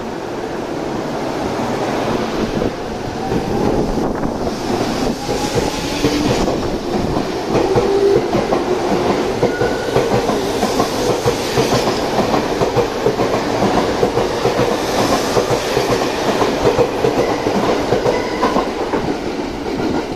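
E231 series 800-subseries electric commuter train pulling out of the station and accelerating past, its wheels clattering over the rail joints. A rising whine from its traction motors comes in as it picks up speed, and the sound grows louder through the first several seconds.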